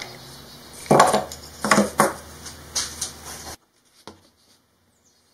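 Small wooden blocks and bolt hardware being handled and set down on a wooden workbench: a few separate knocks and clacks. About three and a half seconds in the sound cuts off suddenly to near silence, with one faint click after it.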